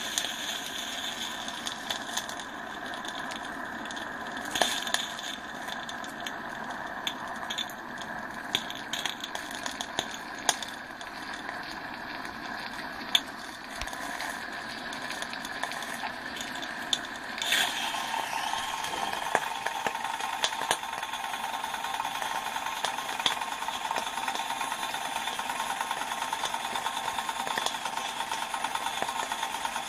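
Accucraft Ruby live-steam model locomotive under steam, hissing steadily, with scattered clicks and taps as its controls are worked. A bit over halfway through the sound changes to a steadier, slightly louder run of quick, even beats as the engine starts running with its wheels turning on the stand.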